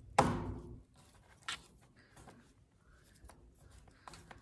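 A pine cone being rolled and pressed in peanut butter on a paper plate, making faint scraping and rustling with small clicks. Just after the start there is one short, loud sound that dies away within about half a second.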